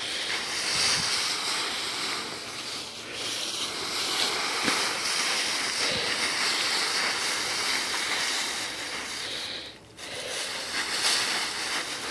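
Dry fallen leaves rustling and crunching steadily as a puppy bounds and burrows through a leaf pile, with a brief lull about ten seconds in.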